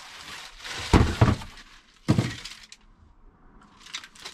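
Cardboard box and plastic packaging being handled while bracket parts are unpacked: rustling and crinkling, with sharp knocks about one and two seconds in.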